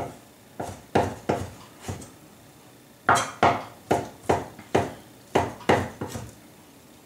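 Chinese cleaver chopping barbecued pork on a wooden cutting board: a series of sharp knocks, a handful at the start, a short pause about two seconds in, then a quicker run of about three chops a second.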